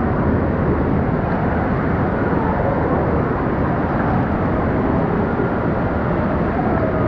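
Wave-pool water churning and splashing right at the microphone, a steady loud wash of water noise, with faint distant children's voices behind it.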